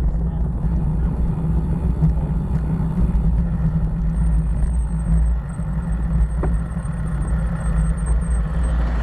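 Wind buffeting the microphone of a bicycle-mounted camera, with tyre rumble from cracked pavement, while riding: a loud, steady low rumble.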